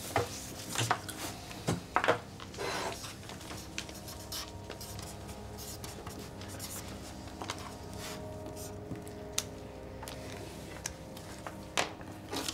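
Pen scratching on paper in short irregular strokes as a vote slip is written, over a faint steady hum.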